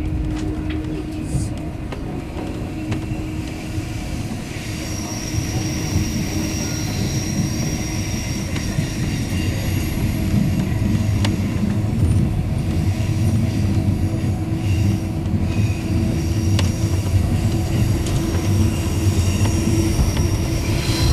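Passenger train running along the track, heard from inside the carriage: a steady rumble of wheels and carriage. A thin high whine joins in about five seconds in and fades out about halfway through.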